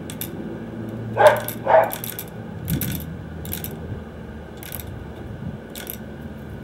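Steel BBs clicking and rattling as they are loaded into a Daisy Buck 105 BB gun's loading port. The clicks are separate and irregular, about a second apart, with the loudest pair about a second in.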